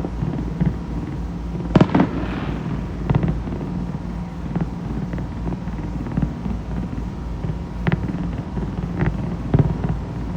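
Fireworks bursting: two loud bangs close together about two seconds in, followed by a brief crackle, then several more scattered bangs.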